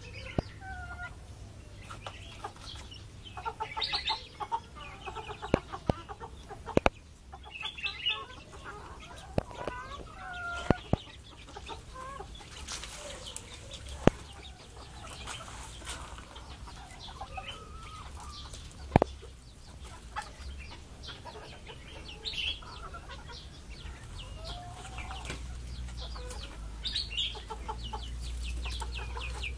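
Backyard hens clucking in short, bending calls, with quick runs of high thin peeps from a chick. A few sharp clicks are heard along the way.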